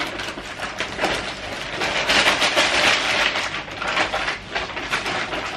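Paper shopping bag and wrapping rustling and crinkling as a heavy gift is pulled out of the bag, loudest about two to three seconds in.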